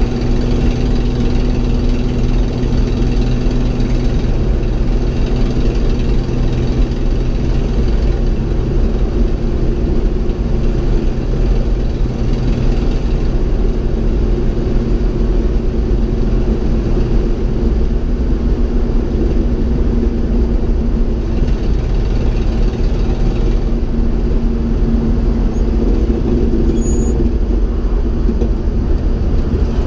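A 1969 GMC 2500 pickup's inline-six engine running steadily at cruising speed, with road rumble, heard from inside the cab.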